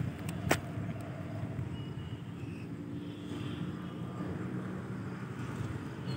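Steady low rumble of road traffic passing at a distance, with one light click about half a second in.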